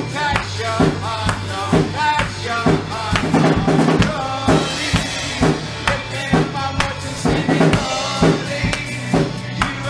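Worship music with a steady drum-kit beat, a little over two beats a second, under sustained instrument tones.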